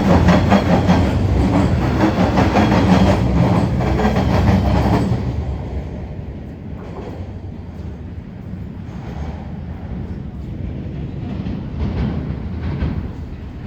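Toronto subway train running along the platform track, loud with a fast clatter from the wheels. The noise drops off sharply about five seconds in as the train clears the platform, leaving quieter station background.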